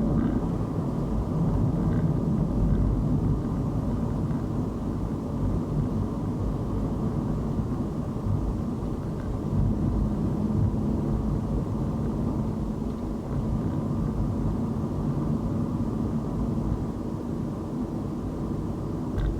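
Car driving along a city road: a steady low rumble of tyre and engine noise.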